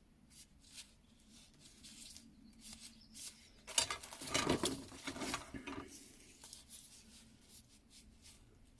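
Hand tools being handled and rummaged through in a box: scattered small clicks and clinks, with a busier burst of rustling and clattering about four seconds in.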